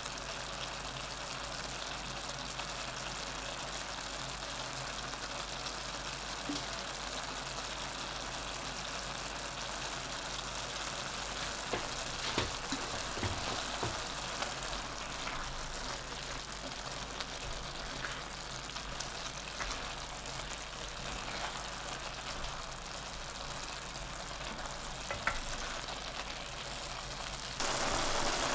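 Beef mince and diced vegetables sizzling in a stainless steel sauté pan as they are stirred, with a few light clicks of the spoon against the pan around the middle. The sizzle steps up louder just before the end.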